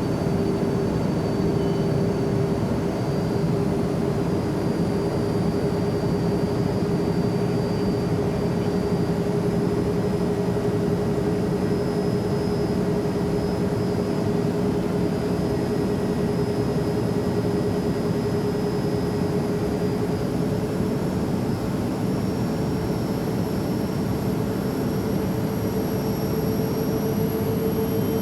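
Jet airplane engines running steadily: a constant rushing rumble with a steady hum and a faint high whine that both creep slowly up in pitch.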